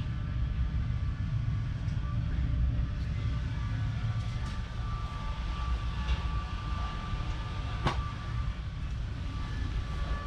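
Fendt 516 Vario tractor's 4.0-litre four-cylinder diesel running steadily, a low rumble with a steady whine above it. There is a single sharp click about eight seconds in.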